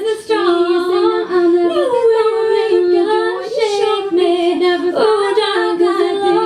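Two women singing live in harmony into microphones, with long held notes that slide from one pitch to the next.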